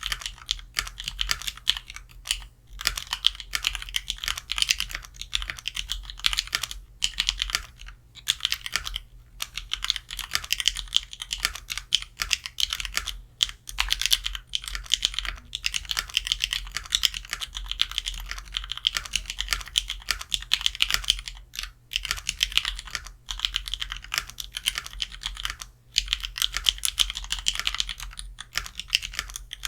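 Typing on a mechanical keyboard with Krytox-lubed Kailh Pro Purple tactile switches and GMK keycaps in a sorbothane-lined Drevo 71-key case. The keystrokes come as a steady run of fast clacks, broken by brief pauses a few times.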